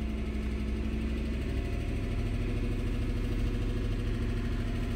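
GM 5.3-litre direct-injected V8 running steadily at a fast idle, just after a fuel trim reset. The engine sets a bank-to-bank fuel imbalance code (P219B), which the mechanic suspects comes from failing injectors or carbon deposits on the intake valves.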